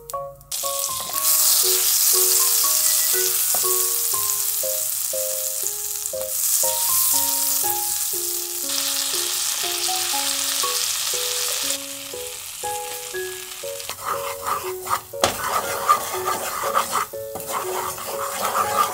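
Butter sizzling loudly in a hot nonstick pan for about ten seconds, then a wooden spatula stirring butter and flour into a roux, scraping the pan, in the last few seconds.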